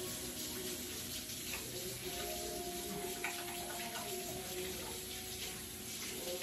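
Kitchen faucet running into a deep sink as hands are washed under the stream: a steady rush of water with small splashes.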